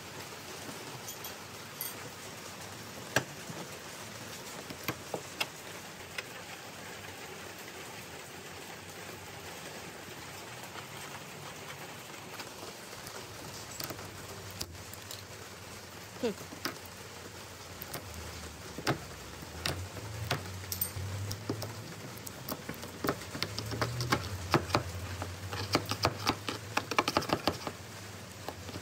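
Metal scraper blade scratching and clicking against a cracked plastic car bumper as paint is scraped back around the damage, over a steady hiss. The clicks are scattered at first and come thick and fast near the end.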